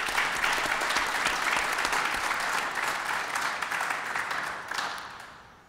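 Seated audience applauding, the clapping fading out over the last second or so.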